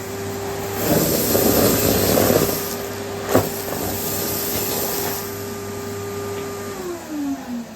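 Numatic Henry vacuum cleaner with a non-genuine aftermarket motor running at a steady whine, with a grainy hiss of dry debris being sucked up in the first few seconds and a sharp click midway. Near the end it is switched off and the motor whine falls in pitch as it winds down.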